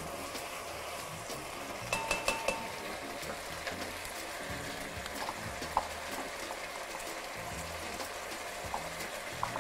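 Spaghetti sizzling steadily in a non-stick frying pan over a high gas flame with starchy pasta cooking water. A few clinks and clicks of the utensil against the pan come around two seconds in and again near six seconds.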